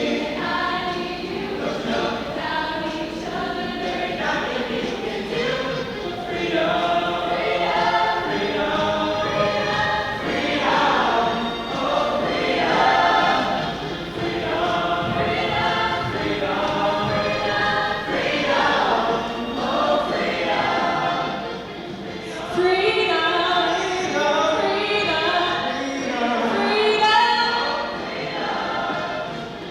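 High school choir singing, many voices together.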